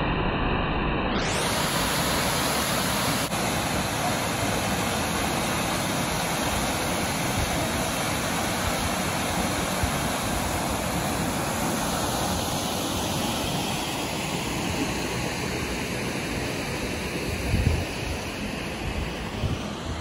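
Steady rushing roar of a waterfall's several streams crashing into the pool below, growing brighter about a second in. A brief low rumble comes near the end.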